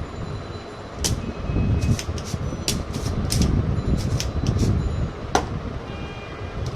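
About a dozen light, sharp clicks and taps of hand tools working on the monitor's power board during removal of a shorted rectifier diode, over a steady low rumble.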